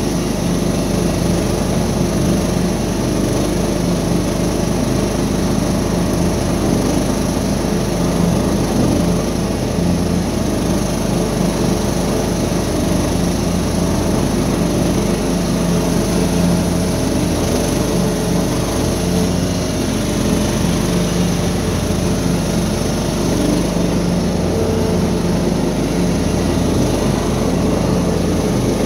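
Riding lawn mower engine running steadily while mowing through tall, thick grass.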